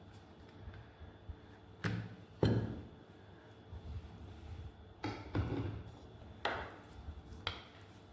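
Several separate knocks and taps on a kitchen worktop, about six in all, the loudest about two and a half seconds in, as things are handled while preparing food.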